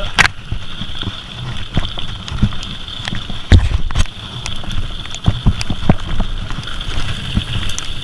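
Mountain bike riding fast over a rough dirt trail, picked up close on the bike: a steady low rumble from the tyres and frame, with frequent rattles and knocks over bumps. The loudest knock comes about three and a half seconds in.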